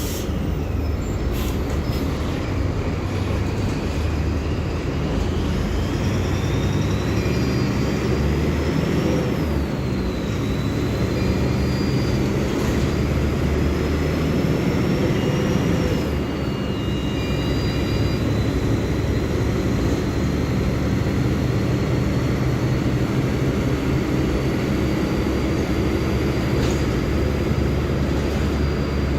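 Mercedes-Benz OF-1724L Bluetec 5 bus diesel running under load as the bus accelerates, a steady low rumble with a whine that rises in pitch, drops back at gear changes about ten and seventeen seconds in, then holds steady at cruising speed.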